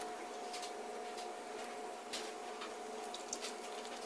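Thick cheese sauce squeezed from a foil pouch onto macaroni in a plastic bowl, then stirred with a spoon: soft squishes and small scattered clicks, over a faint steady hum.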